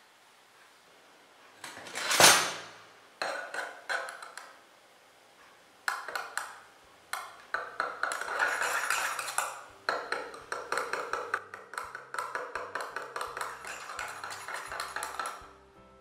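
A thump about two seconds in, then a metal spoon stirring frothed milk into coffee in a ceramic mug, clinking quickly and repeatedly against the mug's sides.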